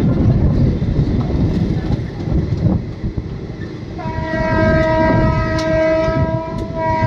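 Moving passenger train heard from a coach doorway: a steady rumble of wheels on the track, then about four seconds in the locomotive's horn sounds one long, steady blast lasting about three seconds.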